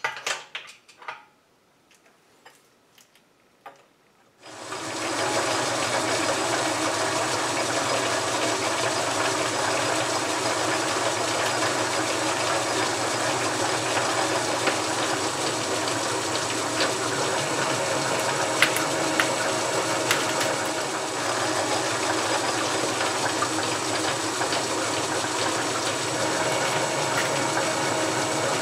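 A few light clicks, then about four seconds in the half-horsepower South Bend 11 metal lathe starts and runs steadily, its motor, belt drive and gearing making a steady hum, while a threading tool cuts internal threads in a bored steel plate.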